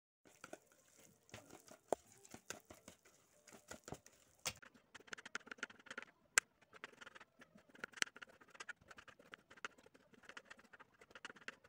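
Small kitchen knife cutting pickles on a plastic cutting board: quick, irregular light taps and clicks, coming thicker in the second half.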